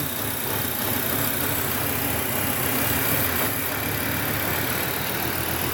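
Volvo 850 T5's turbocharged 2.3-litre five-cylinder engine idling steadily, heard close up in the engine bay, running near normal now that its leaking vacuum lines have been reconnected.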